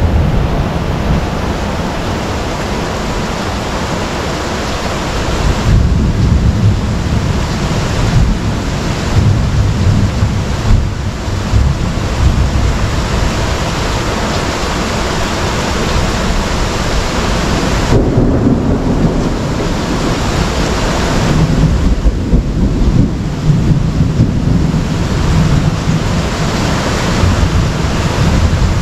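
Heavy rain pouring down in a thunderstorm, with low rumbling thunder that swells and fades several times.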